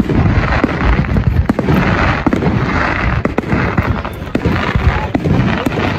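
Fireworks display going off: a dense run of bangs, roughly two a second, over continuous crackling.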